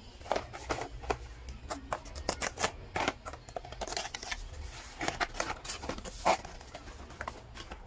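Paperboard gift box being opened by hand: a quick run of crisp rustles and clicks as the card flaps are folded back and the inner tray is slid out, sharpest about six seconds in, over a steady low hum.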